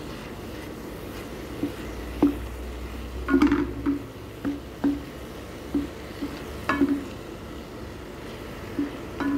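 Wooden spatula scraping and knocking against a metal frying pan while stirring and breaking up minced chicken. The knocks are irregular, about one every half second to second, some with a short metallic ring, over a steady low hum.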